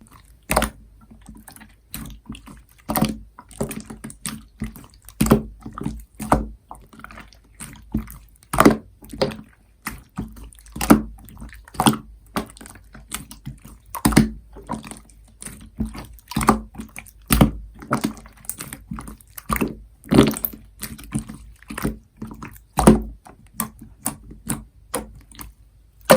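Slime being squished and pressed by hand, making repeated wet, sticky pops and clicks at an irregular pace, a few a second.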